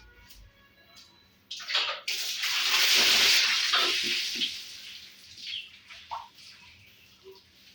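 Water running or splashing for about two seconds, starting suddenly about two seconds in and fading away.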